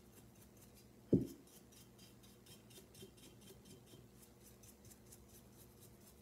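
Paintbrush dry-brushing acrylic paint onto a ceramic duckling: a fast, scratchy back-and-forth of bristles on the glazed-looking surface, about four or five strokes a second. About a second in there is a single dull thump.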